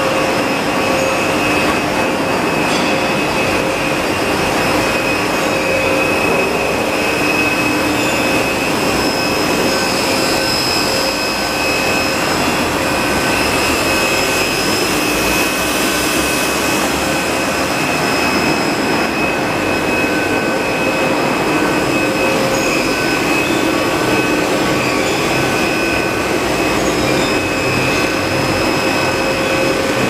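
Cable extrusion line machinery running: a steady, loud mechanical noise with several constant tones through it, unbroken throughout.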